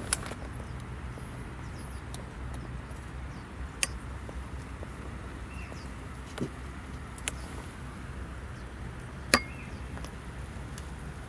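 A handful of separate sharp clicks and knocks, the loudest near the end, over a steady low background rumble.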